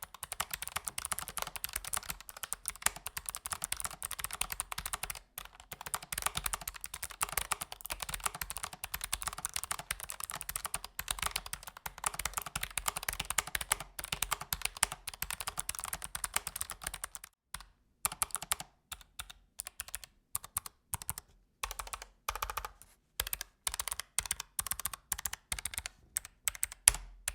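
Typing on a Keychron K1 SE low-profile mechanical keyboard with Gateron Blue clicky switches: fast, continuous keystrokes, each a sharp click, for about the first two thirds, then shorter bursts of typing with brief pauses between them.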